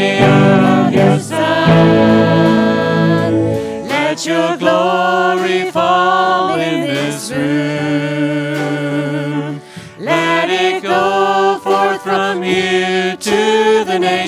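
Church praise band playing a worship song, with a woman's voice singing lead over acoustic guitar, electric guitar and drums.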